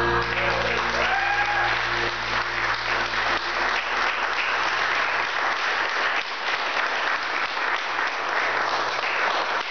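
Audience applauding at the end of a line-dance routine, with the music's last sustained chord fading out in the first couple of seconds.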